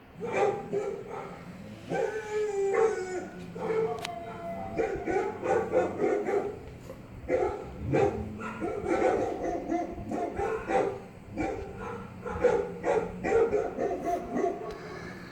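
Dogs barking in quick runs of short barks, with a drawn-out howling cry about two seconds in, from a recording of dog barks.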